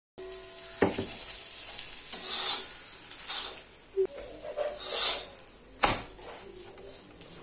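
Butter sizzling under a stuffed paratha on a hot tawa, with a metal spatula scraping and pressing it in strokes as it is turned. The spatula taps sharply against the pan twice, just under a second in and about six seconds in.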